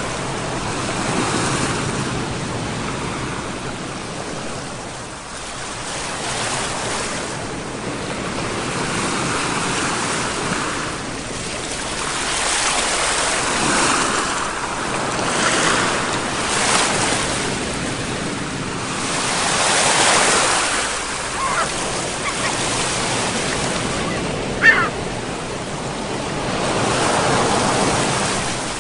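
Ocean waves breaking and washing on the shore in slow swells that rise and fall every few seconds. A brief sharp sound stands out about three quarters of the way through.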